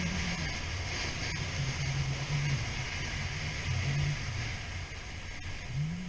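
Suzuki SV650 V-twin motorcycle engine running while riding, its pitch holding and shifting with the revs and rising and falling near the end, under steady wind noise.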